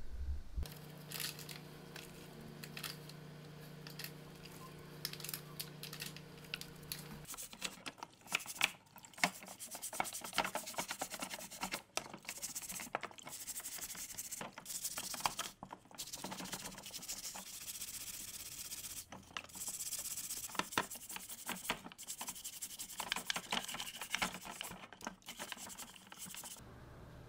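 A stiff wooden-backed scrub brush scrubbing the wet plastic housing parts of a Bosch PBS 75 belt sander in a tub of water, in quick back-and-forth strokes with brief pauses every few seconds.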